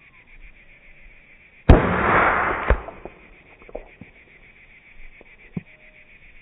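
A single shot from a Savage 93 bolt-action rifle in .17 HMR, a sharp crack followed by about a second of rolling echo. A second, smaller sharp report comes about a second after the shot.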